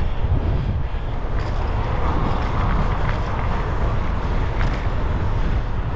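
Wind buffeting the microphone of a camera on a moving road bike, over a steady hiss of tyres on a wet road.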